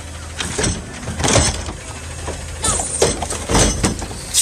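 Garbage truck's Curotto-Can arm lifting a plastic wheeled trash cart and tipping it over the hopper, with repeated clattering knocks and bangs as the cart is shaken and slammed to empty it. The truck's engine runs steadily underneath.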